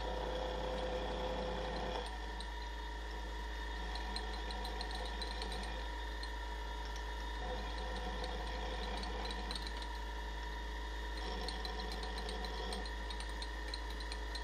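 A CNC milling machine's end mill cutting a metal part, the spindle running steadily. The cutting noise changes several times as the tool works through its passes.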